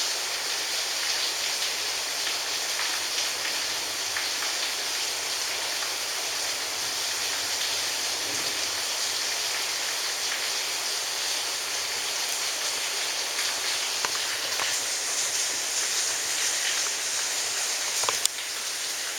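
Steady rain falling, an even hiss with faint scattered drop ticks and a brief sharper knock about 18 seconds in.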